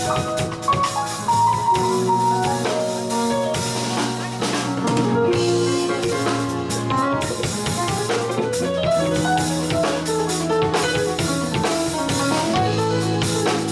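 Live band playing an instrumental passage: drum kit, electric guitar, bass guitar and a Yamaha Motif synthesizer keyboard together, with a steady beat and a melody line over the bass.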